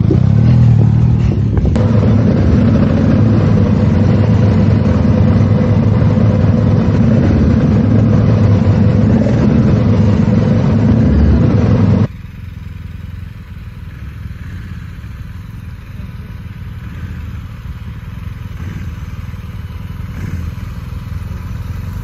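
Adventure motorcycle engines, a BMW R1250 GS Adventure among them, running at low speed on grass, loud and close from a camera mounted on one of the bikes. About twelve seconds in, the sound cuts to a much quieter recording of the motorcycles idling.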